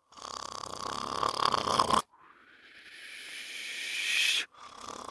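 Snoring played in reverse: a rattling snore that stops abruptly about two seconds in, then a breathy hiss that swells and cuts off suddenly, and another rattling snore starting near the end.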